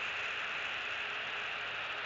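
Steady, unbroken hiss from an outdoor nest camera's microphone, with no calls or other distinct sounds.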